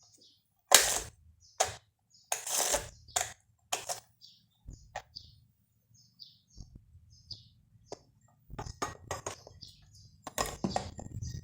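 Irregular hard clicks and clacks of small plastic parts being handled on a toy washing machine, some sharp and some a little longer, with faint small ticks between them.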